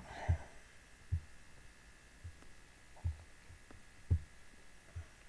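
About six dull, low thumps at irregular intervals over a faint steady hum: mouse clicks and handling on the desk, carried to the microphone.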